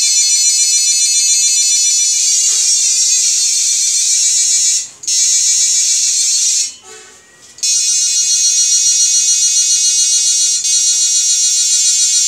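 Homemade 7000 W IGBT electric fishing inverter running under full load (seven 1000 W heating elements), giving a loud, shrill electronic buzz with many overtones. The buzz shifts in pitch about two seconds in and cuts out briefly around five seconds, then again for about a second near seven seconds.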